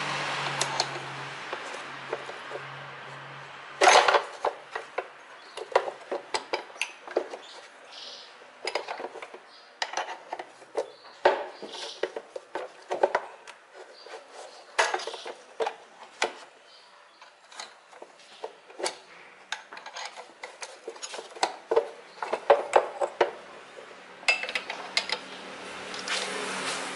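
Irregular metallic clicks and clinks of a socket wrench and loose hardware while the air intake duct is unbolted from the throttle body in a car engine bay. The clicks come in scattered bunches, the loudest about four seconds in.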